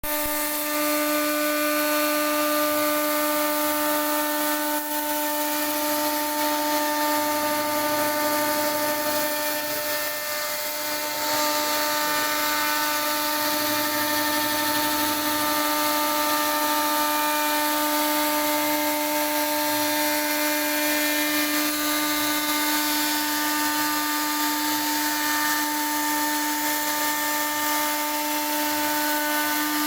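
CNC router spindle running with a steady whine while its bit carves into wood.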